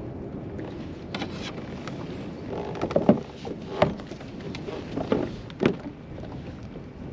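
Wind and water noise on an open kayak, with several sharp knocks and clatters as gear is handled in the kayak, the loudest about three to four seconds in and again near five and a half seconds.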